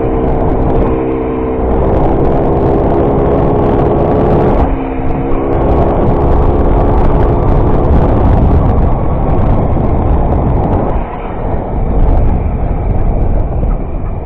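Derbi Variant two-stroke moped engine running under way, mixed with heavy wind rush on the camera microphone. The engine note eases off briefly about four and a half seconds in and again about eleven seconds in.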